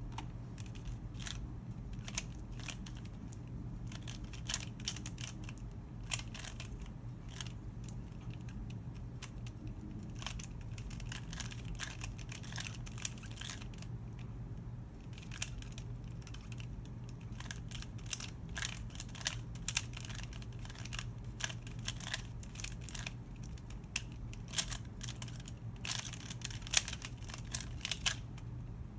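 Square-1 puzzle being turned quickly by hand: irregular plastic clicks and clacks as its layers twist and snap into place, coming thicker in the second half, over a low steady hum.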